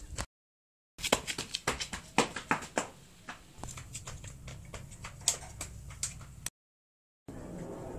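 Running footsteps on concrete, irregular sharp slaps about three a second, with rumble and knocks from a handheld phone camera moving along. The sound drops out to dead silence twice, briefly, at edits.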